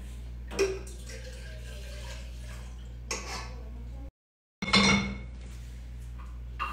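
Bowls and dishes clattering as they are handled and set down on a stove top: four separate knocks, the loudest about five seconds in, over a steady low hum. The sound cuts out briefly just after four seconds.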